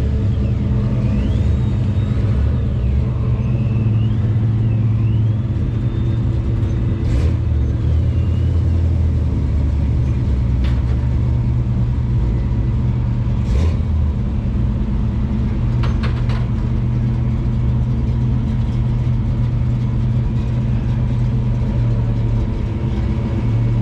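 A car engine idling steadily and loudly, with a few sharp clicks scattered through.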